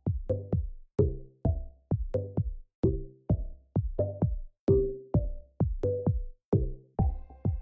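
Background electronic music with a steady drum-machine beat.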